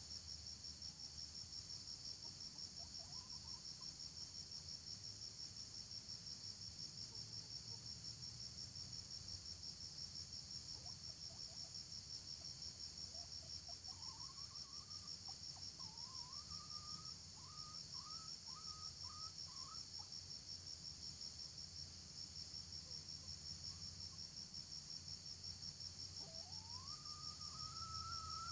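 Steady high-pitched insect chorus with a fine, fast pulse throughout. Faint bird calls rise to a level pitch midway through, as a run of short notes, and again near the end as one longer rising call.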